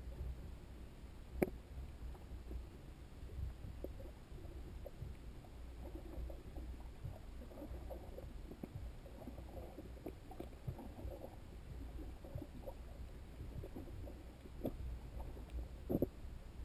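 Underwater ambience heard through a submerged camera's waterproof housing: a low, muffled rumble with a few sharp clicks scattered through it, the loudest about a second and a half in and two more near the end.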